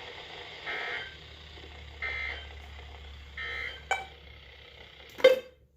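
NOAA Weather Radio broadcast closing with the EAS end-of-message data bursts: three short warbling digital chirps about a second and a half apart, over a low hum. Near the end comes a click and then a loud pop, after which the hum stops.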